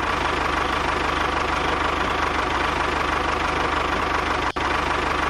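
Tractor-type engine idling steadily with a regular low knocking pulse. It cuts out for an instant about four and a half seconds in, then carries on as before.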